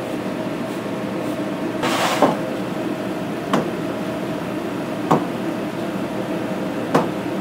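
Dull knocks on a wooden bench as a rolled log of dough is cut into pieces and handled, three short knocks spaced a second and a half to two seconds apart with a brief scrape about two seconds in. A steady machine hum runs underneath.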